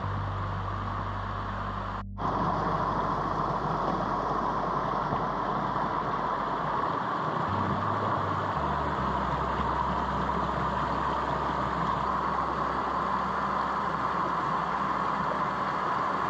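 Mountain creek rushing over rocks: a steady hiss of flowing water. It breaks off for a moment about two seconds in, then comes back louder.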